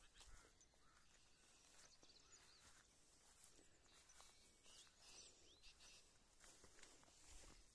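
Near silence: faint outdoor ambience on an open mountainside, with a few faint high chirps around the middle.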